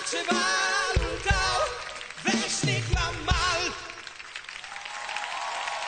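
Live band playing a Viennese waltz, with a singer holding wavering notes over low bass strikes; the music ends about four seconds in. Audience applause then builds.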